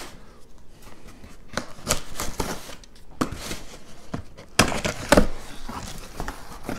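Cardboard shipping box being opened by hand: a knife slitting the packing tape and the flaps scraping and being pulled apart, a run of short scrapes and rustles with a few louder rips and knocks about five seconds in.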